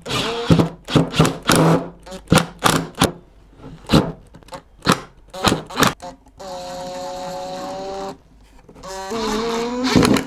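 Cordless driver on a long magnetic bit holder driving pocket-hole screws into MDF: a run of sharp knocks at first, then the motor running steadily for about two seconds, and another short run of the motor near the end.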